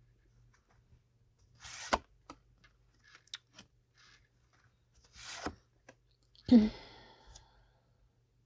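Tarot cards being handled on a table: two short rasping slides of cards, the first ending in a sharp slap, with a few light clicks between. About six and a half seconds in, a short voiced sound like a sigh or hum is the loudest thing.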